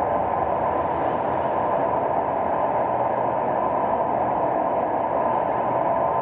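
Steady city traffic noise: a dense, even wash of vehicle sound with no single event standing out.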